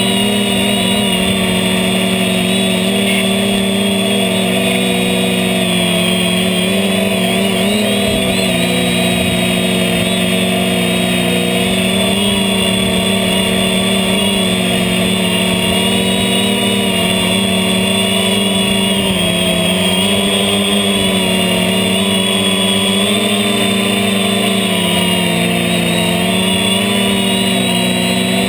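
HobbyKing H550 hexacopter's six motors and propellers whirring steadily, heard from the camera mounted on the craft. Several steady tones rise and fall slightly as the throttle changes.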